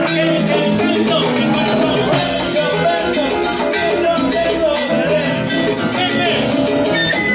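Live salsa band playing: congas and timbales keeping a busy rhythm under bass guitar, with a singer at the microphone.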